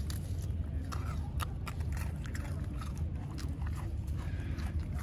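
Puppies crunching and chewing pieces of dry biscuit: an irregular run of short, crisp cracks over a steady low rumble.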